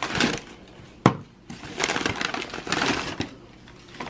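Fast-food paper packaging being handled on a table: rustling and crackling, with one sharp knock about a second in.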